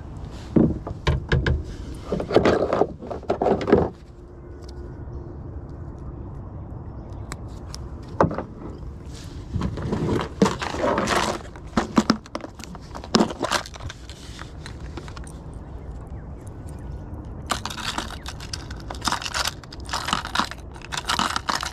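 Fishing tackle being handled in a kayak as a soft-plastic lure is changed: three spells of rustling, clicking and scraping, with quieter gaps between them.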